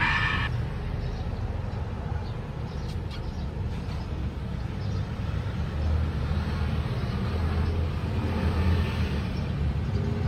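Low, steady rumble of road traffic, swelling for a few seconds past the middle as a vehicle goes by, with a few faint ticks.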